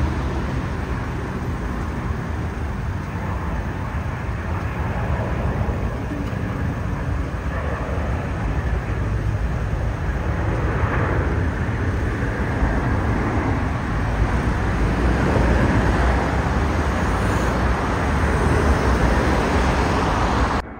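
Steady low rumble of road traffic mixed with the engine noise of a jet airliner descending on final approach, growing slightly louder near the end.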